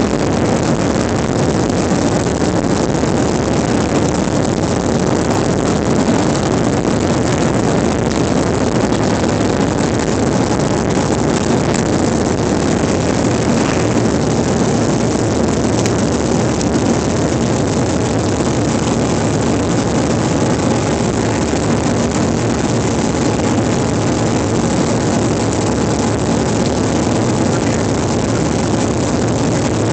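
Airliner's jet engines at takeoff power, heard from a cabin seat by the wing: a steady, loud rushing noise with faint engine tones through it, through the takeoff run and lift-off into the climb.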